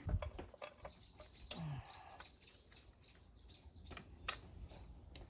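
Faint birds chirping in the background, with a few light clicks of tools against the car: one about a second and a half in and two close together near four seconds.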